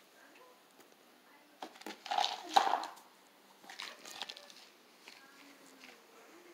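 A baby's short wordless vocal bursts, one loud about two seconds in and a softer one around four seconds, with a sharp knock in the middle of the first.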